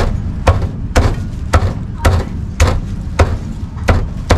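Heavy cleaver chopping a roast duck on a thick round wooden chopping block: evenly spaced sharp chops, about two a second. A steady low rumble runs underneath.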